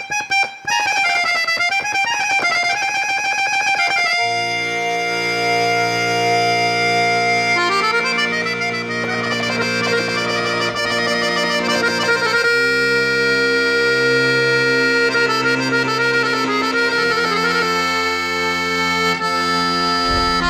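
Background music: a single wavering melody for about the first four seconds, then held chords over a steady bass that change every few seconds.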